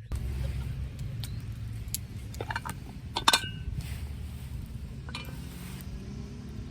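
Metal utensils clinking against cookware: a few sharp clinks, the loudest about three seconds in ringing briefly, over a steady low rumble.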